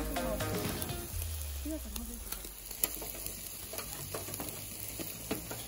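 Tandoori chicken drumsticks sizzling over a charcoal grill, with occasional sharp clicks of a metal spatula against the grate. Background dance music fades out about a second in.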